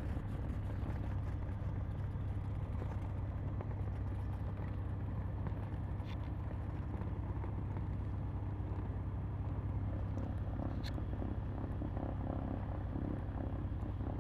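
The Piper Seminole's twin piston engines running steadily at idle while the plane holds on the runway, heard as an even low drone inside the cockpit.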